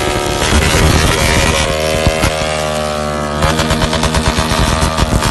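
160 cc motorcycle engine revved hard against its rev limiter, the ignition cutting in and out in a rapid stutter. For about a second and a half in the middle it holds a steady high pitch, then the stutter comes back.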